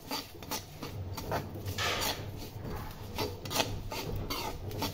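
Metal spoon scraping and stirring seeds and chopped nuts in ghee around a metal pan. A run of short rasping strokes, with one longer scrape about two seconds in, over a low steady hum.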